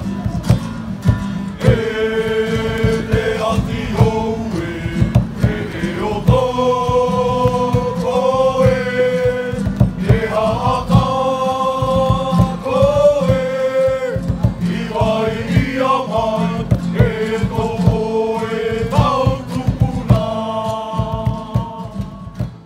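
Background music: several voices singing long held notes over steady low drumming. It cuts off at the very end.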